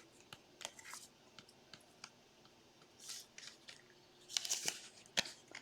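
Trading cards and their packaging being handled: scattered light clicks and soft rustles, with brief louder rustles about three seconds in and again around four and a half seconds.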